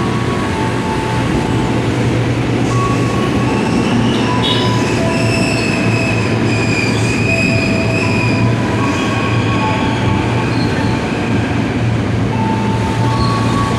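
Train running through on the tracks close by, a steady rumble with its wheels squealing in several high tones that come and go.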